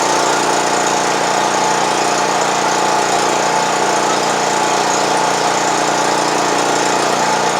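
North Star generator's Honda GX four-stroke engine running steadily at a constant speed: the no-start has been cured by a cleaned carburetor and a new fuel filter.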